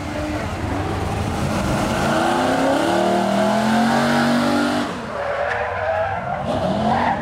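Drill-team pickup truck's engine revving hard, rising in pitch as it accelerates down the course. Near the end its tires squeal as it brakes hard.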